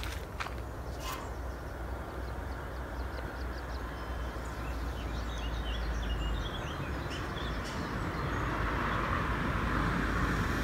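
Outdoor ambience: a steady low rumble and a hiss that swells toward the end, with small birds chirping briefly in the middle.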